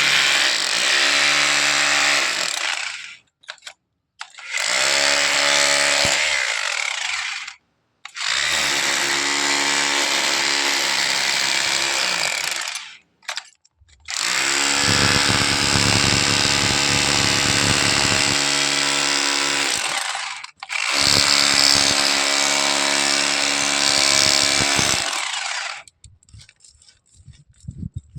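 Handheld electric power tool run in five separate bursts of a few seconds each, its motor whine mixed with a harsh grinding noise, stopping fully between bursts.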